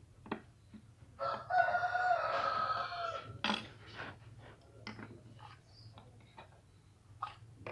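A rooster crowing once, a single call of about two seconds. Around it are small scrapes and clicks from a knife carving a wooden kite-flute cap.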